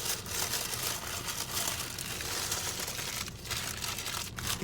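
A foil food wrapper being crumpled and crinkled: continuous rustling with many sharp crackles.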